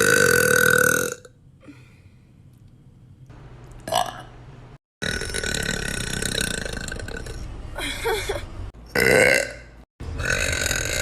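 A string of loud burps cut one after another. One ends about a second in, a short one comes at about four seconds, a long drawn-out one starts at about five seconds, a sharp one comes at about nine seconds, and another starts after an abrupt cut near the end.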